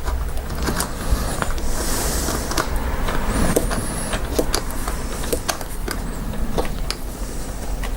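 Small clicks and scrapes of a wheel nut being fitted and tightened onto an RC truck's rear wheel by hand, over a steady low background rumble.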